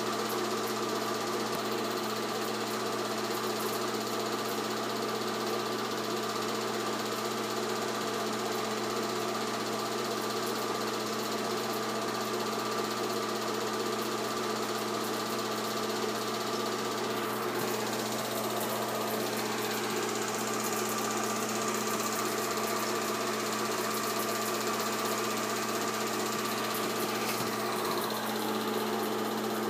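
8mm film projector running steadily: a continuous mechanical sound with a steady low hum that holds even throughout.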